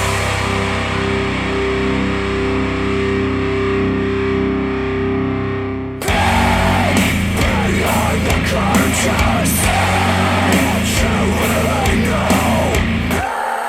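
Rock music with guitar played back through ELAC Debut Reference DBR-62 bookshelf speakers driven by a Rotel A12 integrated amplifier. For about six seconds there are sustained held chords with the treble rolled off. Then the full band with drums cuts in suddenly.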